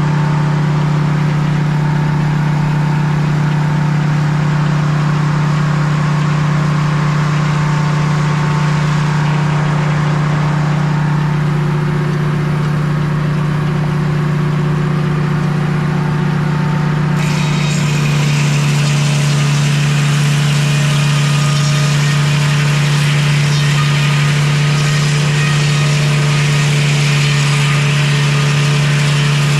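Sawmill engine running steadily. About two-thirds of the way through, its pitch drops a little and a brighter, hissier sound joins in, as when the blade is cutting into the log.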